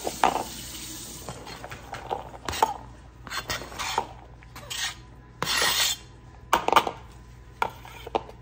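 Knives cutting vegetables on plastic cutting boards, with scattered knocks and clatters of blades and utensils. A brief scrape comes a little past halfway.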